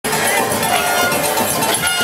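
Steel pan band music playing amid a noisy street crowd, loud and dense throughout.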